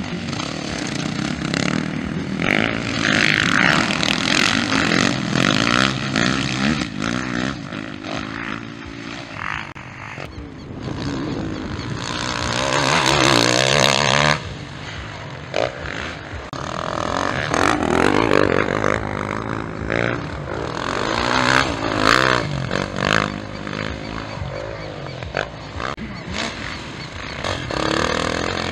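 Motocross bikes on a dirt track, their engines revving up and down as riders accelerate and pass close by. The sound cuts abruptly between clips, most sharply about halfway through.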